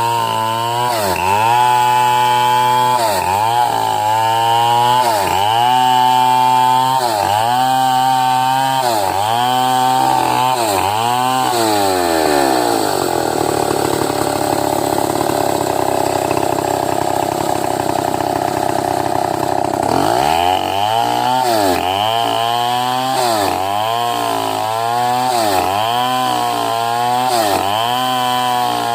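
Chainsaw ripping lengthwise through a medang log. The engine speed dips and recovers about once a second, holds steadier and higher for several seconds in the middle, then goes back to dipping.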